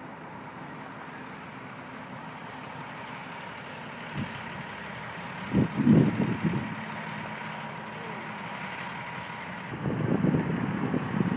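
Steady engine and road noise from idling vehicles and traffic, broken by gusts of wind buffeting the microphone around six seconds in and again near the end.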